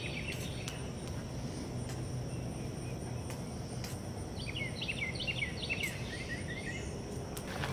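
A bird gives a quick run of short downward chirps about four and a half seconds in, over steady low background noise, with a few faint clinks of a metal spoon stirring noodles in a steel cup.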